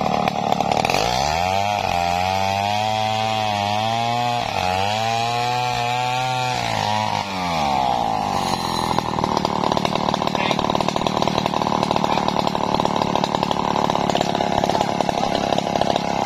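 Stihl 070 two-stroke chainsaw running at high revs, then throttled back to a lower, wavering speed for several seconds, with a brief dip in the middle, while a slab is cleared between cuts. It revs back up about eight seconds in and runs at high speed again.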